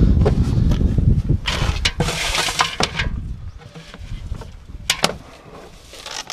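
Fishing nets and gear being handled in a car's boot: rustling and scraping of net mesh against the gear, loudest between about one and a half and three seconds in. There are a couple of sharp clicks about five seconds in, and a low rumble in the first second or so.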